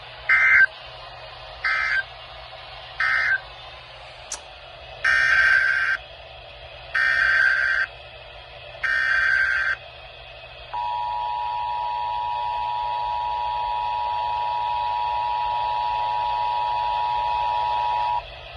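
Emergency Alert System data tones: three short warbling data bursts, the end-of-message code, then three longer bursts of header code. Then the two-tone attention signal, a steady dual tone held for about seven and a half seconds, starts a little past the middle.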